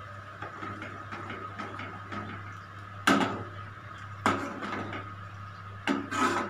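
Steel ladle stirring thick tomato chutney in a kadhai, scraping and knocking against the pan: sharp knocks about three seconds in, again just after four seconds, and a cluster near the end.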